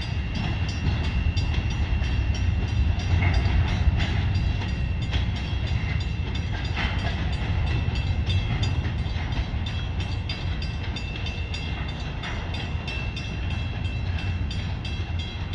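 Freight train cars rolling past with a steady low rumble, and a regular sharp ticking about two to three times a second running through it.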